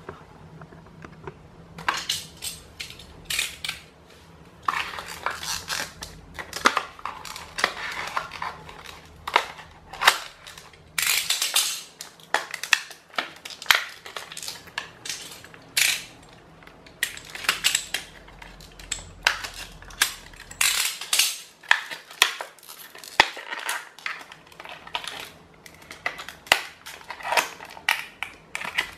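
Clear plastic blister pack being bent, crinkled and pried open by hand: irregular crackling and snapping of stiff plastic, with a denser burst of crackling about eleven seconds in.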